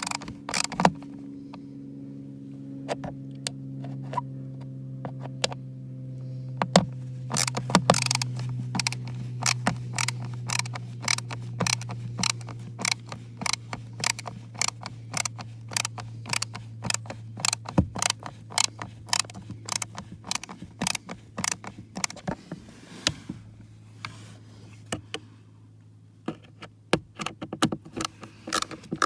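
A 1/4-inch ratchet clicking in many quick strokes while screws are turned. Under it runs a steady low hum that slowly fades.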